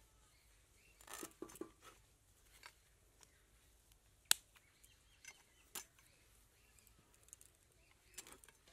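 A catfish being cut and scraped against the curved blade of a bonti: a short stretch of scraping about a second in, then a few scattered sharp ticks, the loudest about four seconds in.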